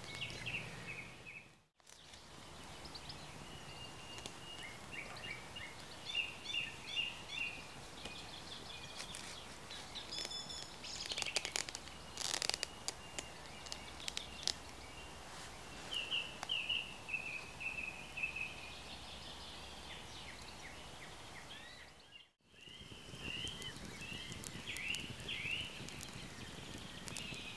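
Woodland songbirds chirping and trilling, with a few sharp clicks about eleven to thirteen seconds in. The sound drops out briefly twice.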